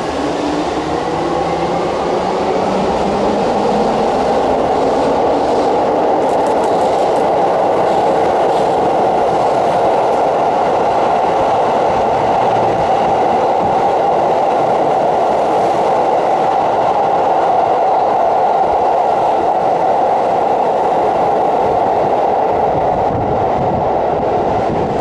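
Keihan 13000 series electric train running through an underground station without stopping: a steady, loud rumble of wheels on rail. A rising whine comes in the first few seconds, and a few clicks sound from about six to ten seconds in.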